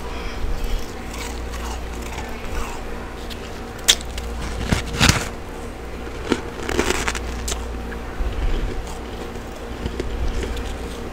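Close-miked chewing of freezer frost: a few sharp crunches scattered through the middle, with softer crunching between, over a steady low hum.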